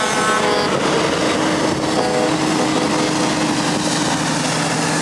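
Diesel prime movers driving past one after another in convoy, their engines running with a steady drone. A short pitched tone sounds at the very start.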